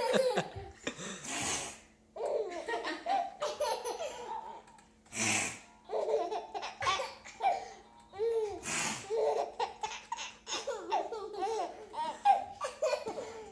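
Baby laughing in repeated short bouts, with a few sharp breathy sounds in between.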